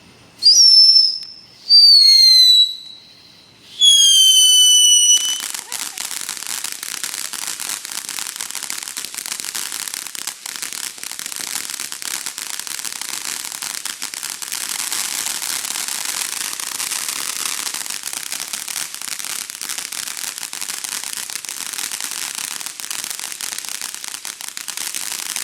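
Consumer fireworks: three loud whistles in the first few seconds, each falling in pitch, followed by about twenty seconds of dense, steady crackling.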